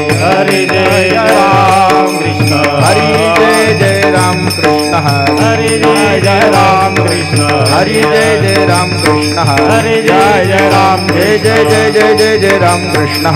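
Varkari kirtan music: voices singing a devotional chant over a drone, with hand cymbals (taal) struck in a steady beat.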